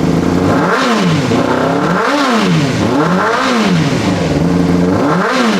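2005 Honda CBR600RR's inline-four engine running cold, revved up and back down four times from idle as it clears air from the fuel lines after a fuel pump repair. It has a burble that the owner hopes will go away once it warms up.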